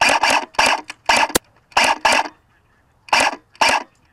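A person coughing hard and close, about nine short coughs in uneven clusters, with two sharp clicks, one at about a second and a half in and one near the end.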